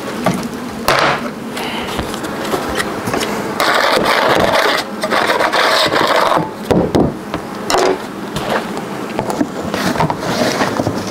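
Brush sweeping bee-hive debris off a Varroa monitoring board in a few strokes, the longest lasting a few seconds near the middle, cleaning it so the fallen mites can be counted.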